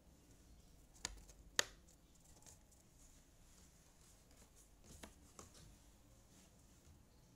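Jigsaw puzzle pieces being picked up, tapped together and set down on a table: two sharp clicks about a second in, then two softer ones near the five-second mark, otherwise quiet.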